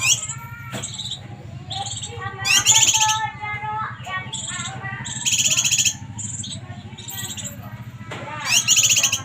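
Kinoy bird calling: three loud, rapid high trills a few seconds apart, with softer short chirps between them, over a steady low hum.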